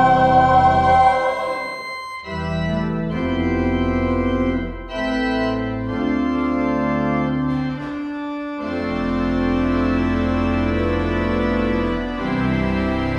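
Church organ playing slow, sustained chords that change every two to three seconds, with short breaks between some of them.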